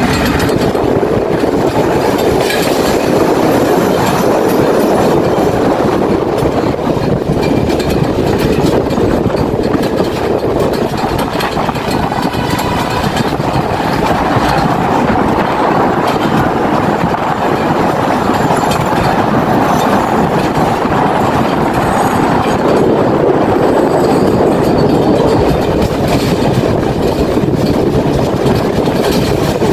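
Passenger train running at speed, heard from an open carriage door: a steady loud rush of wheels on rails with clickety-clack.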